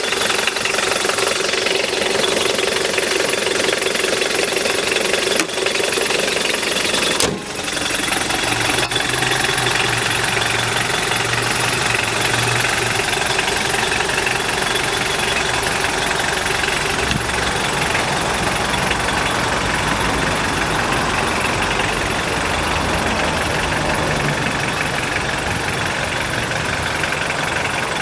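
The 1989 Mitsubishi Pajero's intercooled turbo-diesel engine idling steadily. A single sharp click about seven seconds in; after it a steady low hum joins the idle.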